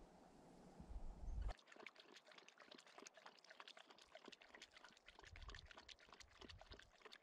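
A dog lapping water poured from a plastic bottle into a cupped hand: faint trickling and a quick run of small wet clicks, starting about a second and a half in after low rumbling.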